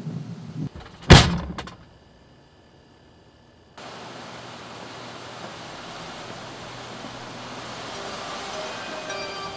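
A car door slams shut about a second in, the loudest sound. After a short lull, a steady hiss of outdoor ambience begins abruptly, with faint held tones coming in near the end.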